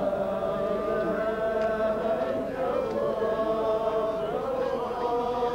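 A group of men chanting together in unison, holding long notes that shift in pitch every second or two.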